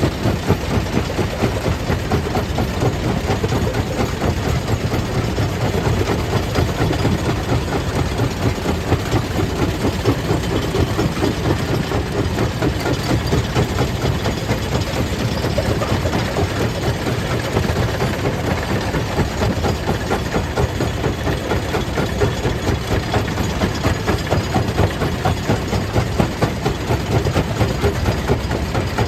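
Stone crusher machinery running steadily: a loud, continuous heavy mechanical drone with a rapid, even throb.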